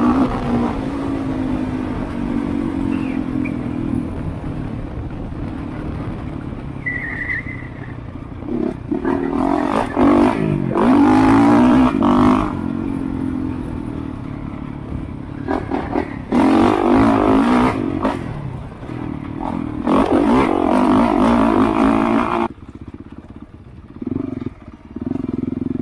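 Honda CRF450RX's single-cylinder four-stroke engine being ridden, its note rising and falling with the throttle, with three louder stretches of hard acceleration and wind rushing over the helmet microphone. Near the end the level drops sharply to a quieter, steady low-rev engine note.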